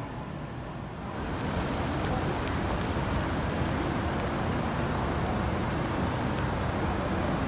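City street traffic: a steady rush of passing vehicles at a busy crossing, which gets louder about a second in.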